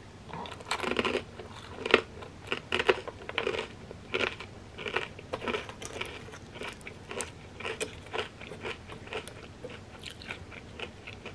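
Crunching and chewing of a crisp fried wonton. Sharp crunches come thick for the first several seconds, then grow fainter and further apart as it is chewed down.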